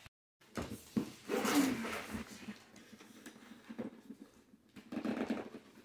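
A dog rummaging nose-first in a cardboard gift box: rustling and scraping of cardboard and packaging with a few light knocks, in two main bouts, after a brief dropout at the start.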